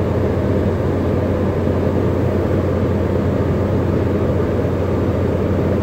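Drilling rig machinery on the mud pit floor running with a steady, loud, low drone and even hum. The rig is circulating mud but not drilling.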